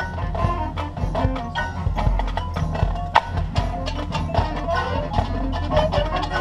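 Drum and bugle corps show music: quick percussion strokes over ringing mallet-keyboard notes, with one sharp accent about three seconds in.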